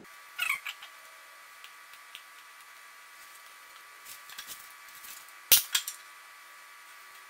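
Excess upholstery fabric being trimmed from a stapled armrest cover. Short scraping cuts and small clicks come and go, with the loudest, a sharp double click, about five and a half seconds in.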